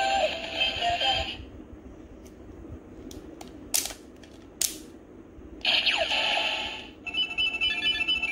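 DX Kamen Rider Ridewatch toy: its electronic song through the small speaker cuts off about a second in. Sharp plastic clicks follow as the watch's clear face ring is turned, two of them loud. Then the toy gives electronic sound effects with falling glides and a run of quick beeps.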